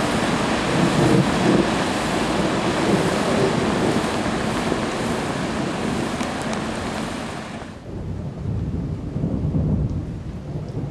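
Heavy rain and water spraying up as a car drives through a flooded street, a loud steady hiss. About eight seconds in the hiss cuts off suddenly, leaving a low rumble of thunder that swells and fades.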